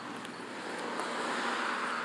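A car passing on the road: a rushing tyre-and-road noise that swells about a second in and starts to fade near the end.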